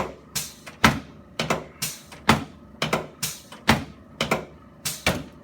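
A steady run of about a dozen sharp clicks, roughly two a second, during a chiropractic adjustment of the shoulders, clavicles and anterior ribs.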